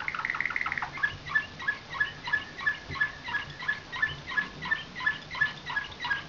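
A canary of a nightingale-song (slavujar) line singing. It gives a fast trill for about the first second, then a slower phrase of repeated downward-sliding notes, about three a second.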